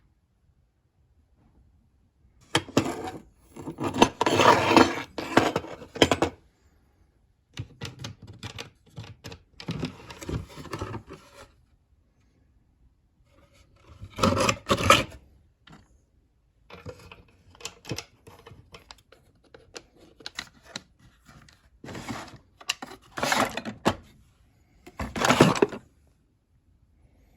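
Rummaging through an old machinist's toolbox: metal tools and parts clinking, rattling and scraping in several bursts, with quiet pauses between.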